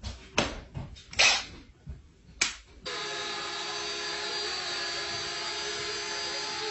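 Small toy quadcopter drone hovering, its motors and propellers giving a steady, even buzzing whine that starts about three seconds in. Before it come a few scattered knocks and clicks.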